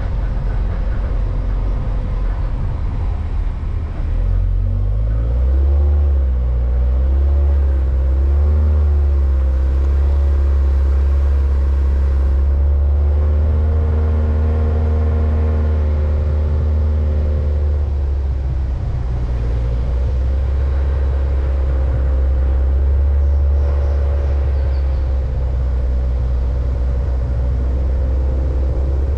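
Vehicle driving along a road: engine running under way over a heavy low rumble of road and wind noise. The engine note climbs a few seconds in, then holds fairly steady with small rises and falls.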